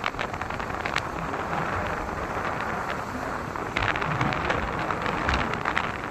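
Wind rushing over the microphone on a moving Yamaha motorcycle, mixed with the bike's running and road noise, with a few sharp crackles in the second half.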